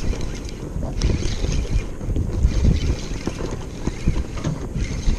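Wind buffeting the microphone in a rough low rumble, with water against a small boat's hull and a hiss that comes and goes.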